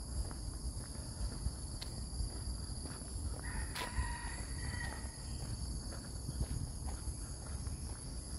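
Rainforest insects (cicadas or crickets) shrilling in a steady high chorus, with footsteps along a trail. A short call comes about halfway through.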